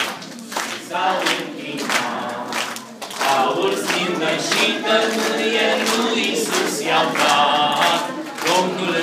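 A group of children singing a religious song together, with hands clapping along.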